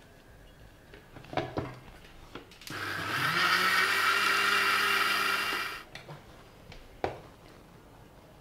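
Electric mixer grinder grinding semolina, curd and water into dosa batter in its steel jar: the motor spins up quickly, runs steadily for about three seconds, then stops abruptly. A few knocks come before it starts and one sharp knock after.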